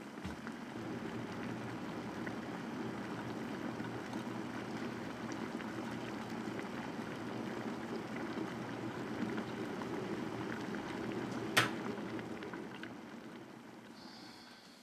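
Electric kettle coming to the boil, a steady rushing, bubbling noise. About three quarters of the way through, its switch clicks off sharply, and the boiling then dies away.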